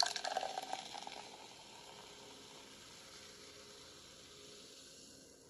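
A fizzing hiss that starts loud and fades over about two seconds, leaving a faint steady hiss; a sound effect closing the intro music.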